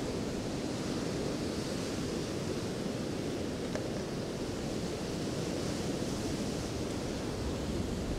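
Steady rush of sea surf breaking and washing up a beach.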